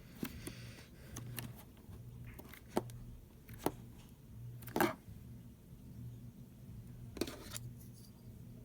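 Slime being squeezed and stretched by hand, giving sticky clicks and crackling pops at irregular moments, the loudest about five seconds in, over a steady low hum.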